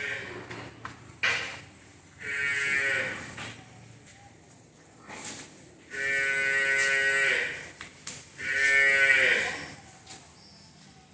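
Water buffalo calling: three drawn-out, fairly high-pitched moos about two, six and eight and a half seconds in, the last two longer, with a single sharp knock a little after a second in.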